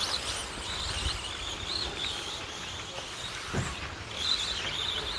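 Electric 2wd short-course RC trucks racing on a dirt track, their motors whining high and rising and falling with the throttle. There is a brief knock about three and a half seconds in.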